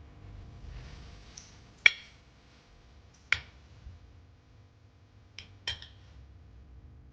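Four sharp clicks over a faint steady hum: two single clicks about a second and a half apart, then a quick pair near the end.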